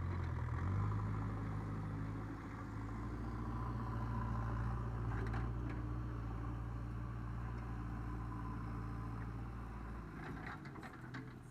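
JCB 3DX backhoe loader's diesel engine picking up revs at the start, running steadily, then easing off about ten seconds in, with a few light knocks from the machine.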